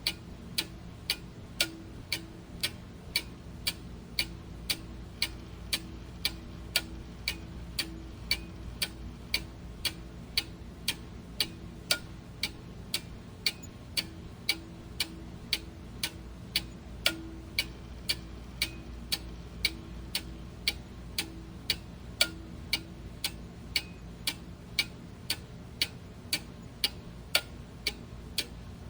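Clock ticking steadily, about two ticks a second, the strokes alternating louder and softer, over a faint low hum.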